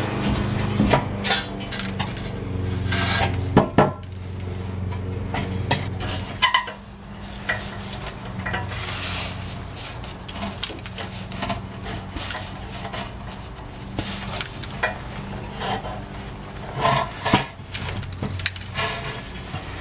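Scattered metal clanks, clinks and scrapes as a 1995 Toyota Tacoma's rusted front exhaust pipe is worked loose and pulled off. A steady low hum sits under them and drops away about six seconds in.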